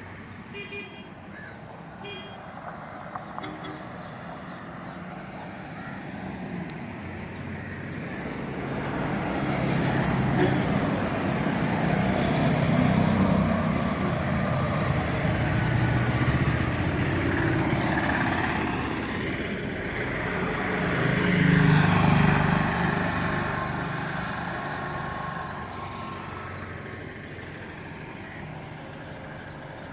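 Motor vehicle engines running with road noise, swelling as vehicles pass close by: loudest about 13 and 22 seconds in, then fading.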